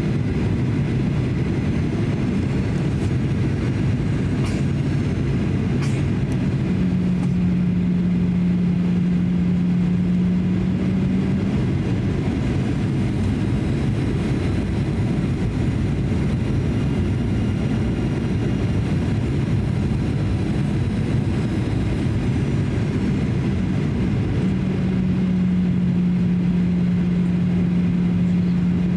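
Cabin noise inside a Boeing 737-800 on approach: a steady roar of airflow and its CFM56 engines. A low engine hum swells in about seven seconds in, fades a few seconds later and comes back near the end.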